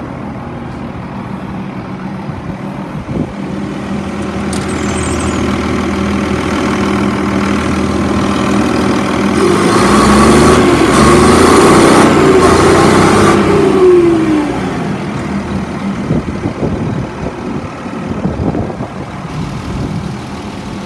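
2006 CCC (Crane Carrier) garbage truck's diesel engine idling, then revved up gradually over several seconds, held high for a few seconds about halfway through, and let fall back to idle.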